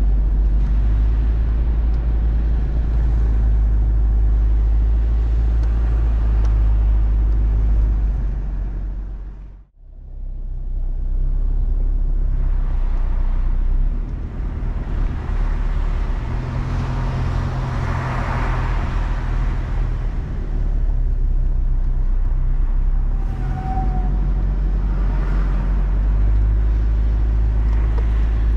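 Toyota Prado 4WD driving along beach sand: a steady low rumble of engine, tyres and wind. The sound drops out briefly about ten seconds in, then carries on.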